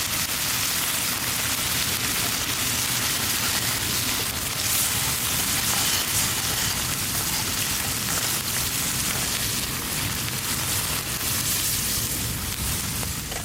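Chicken sizzling steadily in a pan over a campfire, a dense hiss of frying fat.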